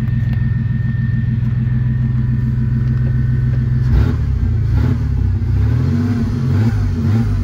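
Chevrolet 4.3-litre V6 running through a glasspack-type muffler, which gives it a little bit of sound. It idles steadily at first, then about four seconds in it is revved up and down a few times.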